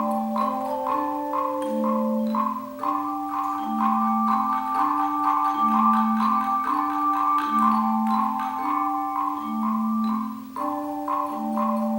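Tone chime ensemble playing a piece: sustained ringing bell-like tones over a low figure that repeats about every two seconds.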